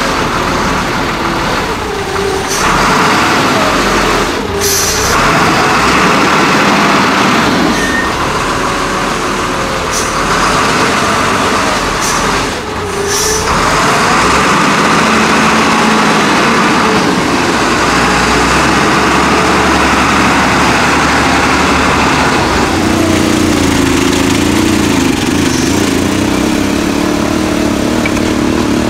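XCMG LW300FN wheel loader's diesel engine running and revving under load as it lifts and tips its bucket, with several short bursts of hiss. Near the end, the small engine of a three-wheeled cargo motorcycle pulls away with a load of sand.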